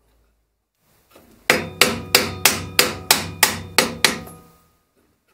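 A hammer knocking at parts of a wood lathe's headstock drive to drive them loose: about nine quick blows, roughly three a second, each ringing briefly.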